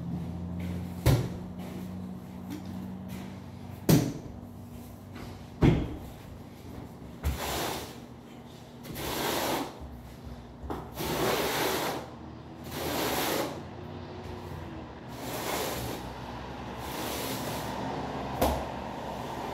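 A steel notched trowel scraping thinset mortar, about five rough strokes a second or so long, as the mortar is spread and combed for floor tile. A few sharp knocks come in between, the loudest about four and six seconds in.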